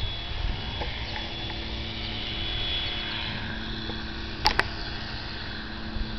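Outdoor ambience: wind rumbling on the microphone under a faint steady hum, with two sharp clicks about four and a half seconds in.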